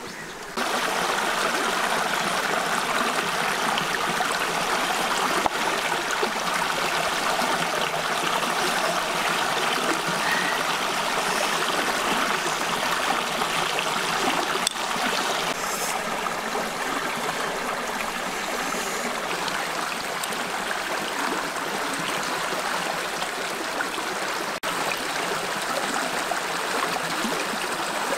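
Stream water running steadily over rocks, starting suddenly about half a second in.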